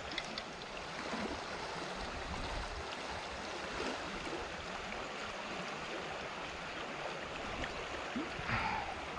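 Shallow creek running over a riffle: a steady wash of moving water.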